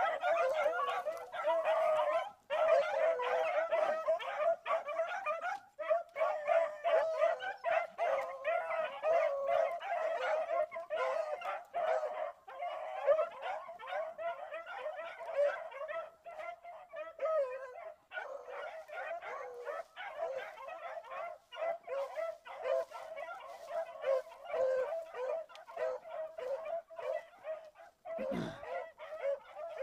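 A pack of rabbit hounds baying and yelping without a break, several voices overlapping, as they work a rabbit's scent trail. A brief low thump comes near the end.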